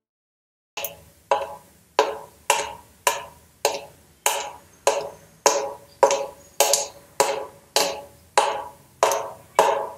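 Steady percussion beat starting after a brief silence: one sharp, woody hit repeated evenly a little under twice a second, each one dying away quickly, as a music track begins.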